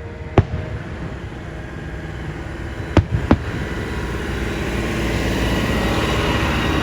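Fireworks going off: a sharp bang about half a second in and two more close together about three seconds in, over a continuous rumble and crackle of bursts that builds toward the end.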